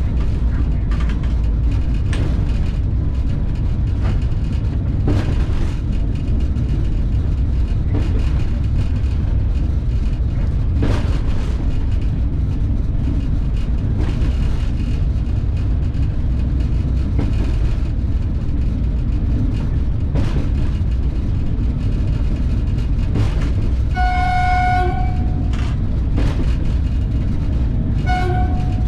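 Train running on the line, heard from inside the locomotive cab: a steady low rumble with occasional knocks from the wheels and track. About 24 s in the horn sounds for about a second, and it gives a short blast again near the end.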